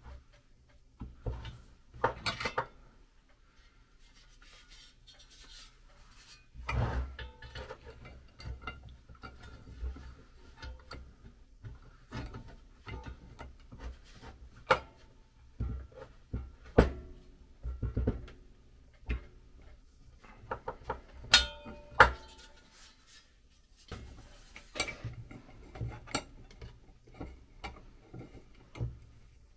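Metal clinks, taps and scrapes as pressed-steel toy airplane parts and a small steel drill-press vise are handled and adjusted. Several sharper knocks ring briefly.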